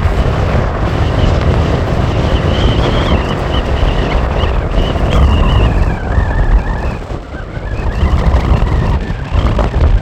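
Strong desert wind buffeting the microphone in a loud, gusting rumble, with a faint wavering high whistle above it.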